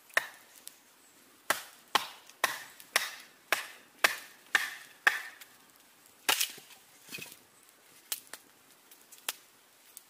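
Batoning firewood: a wooden baton knocks down on the spine of a knife blade driven into an upright stick, splitting it. About a dozen sharp wooden knocks, a steady run of about two a second in the middle, then a few lighter, more spaced-out taps.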